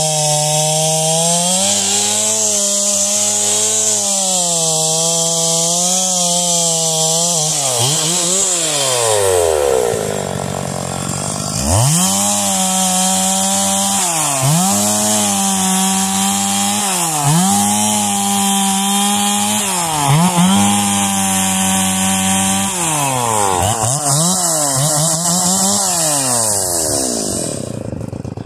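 Stihl MS 440 two-stroke chainsaw cutting firewood logs at high revs, its pitch sagging under load in the wood. About eight seconds in the engine drops back toward idle. It then revs up again and runs through a string of quick dips and recoveries, roughly one every second and a half.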